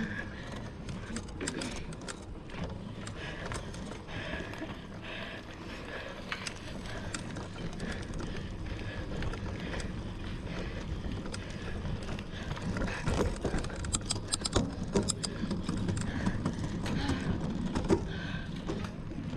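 Mountain bike ridden over rough ground: chain and frame rattling with scattered sharp clicks, thickest about two-thirds of the way through, over a steady low rumble.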